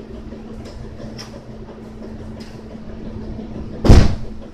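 Handling noise from hands working a small paper-clip lure and treble hook: a few faint clicks, then one loud bump close to the microphone about four seconds in, over a steady low hum.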